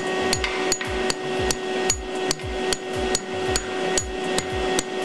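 Hammer striking a steel expanding sleeve anchor, driving it down into a drilled hole in a concrete floor through a steel post's base plate. The blows come evenly, about two to three a second, each a sharp metallic hit with a low thud, over a steady hum.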